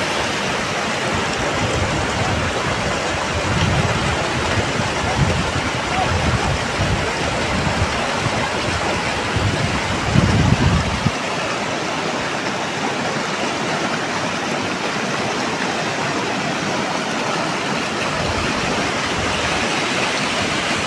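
Fast mountain river rushing through white-water rapids, a steady noise of churning water. Low rumbles come and go in the first half, the strongest about ten seconds in.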